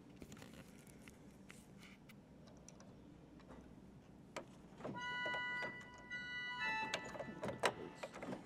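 Clicks and knocks at the console of an 1830 John Abbey pipe organ with mechanical action. About five seconds in, a few short, high organ notes sound, with clicks between them.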